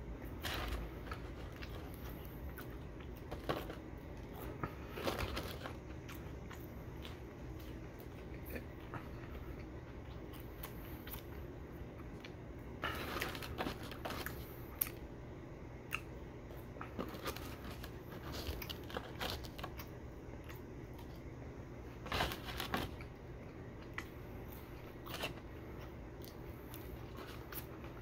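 Close-up eating sounds: french fries being chewed, with scattered short crackles and scrapes as fingers pick food scraps off a disposable plate.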